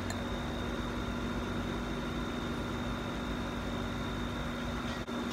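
Steady machine hum with a constant low tone and a faint high whine.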